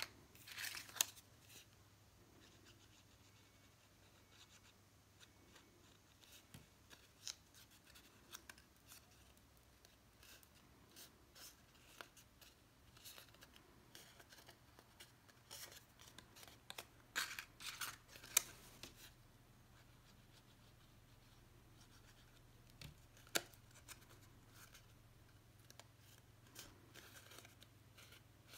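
Faint rustles, crinkles and taps of red cardstock pieces being handled, folded and pressed together by hand, with louder clusters about a second in and again around seventeen to eighteen seconds.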